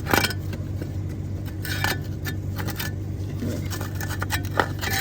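Loose sheet-metal heat shield and hand tools clinking and rattling as the shield is worked off its mounting stud under the car, in irregular jangling clatters, loudest right at the start and again near two seconds in.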